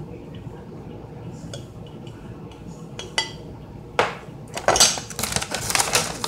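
Table knife scraping and clinking against a plastic plate while spreading peanut butter, faint at first. A sharp knock comes about four seconds in, followed by a louder stretch of scraping and clatter near the end.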